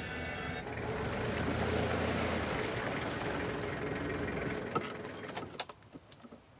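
A pickup truck (ute) running, with engine hum and rushing road noise that swells and then fades. A few sharp clicks and knocks come about five seconds in.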